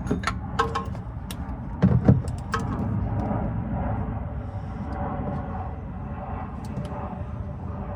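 Clicks and knocks of hands and tools working at a car's oil filter housing, with two heavier thumps about two seconds in, over a steady low rumble.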